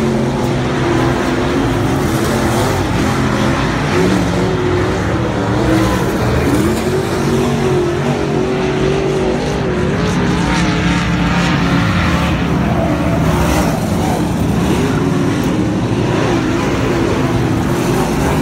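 Dirt-track race car engines running at speed on the oval, a loud continuous drone whose pitch keeps rising and falling.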